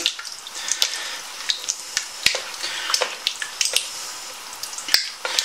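A spoon stirring thick bean stew in a stainless steel stockpot: wet sloshing, with scattered clicks and knocks of the spoon against the pot's sides.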